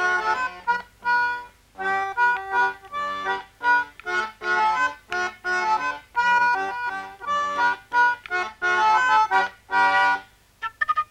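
Accordion playing a dance tune in short rhythmic chords with brief gaps between them. It breaks off shortly before the end.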